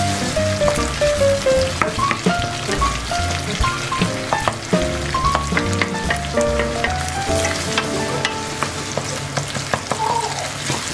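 Minced meat sizzling in a nonstick frying pan, with scattered crackles, as a wooden spatula stirs it to cook off the liquid. Background music with a stepping melody plays underneath.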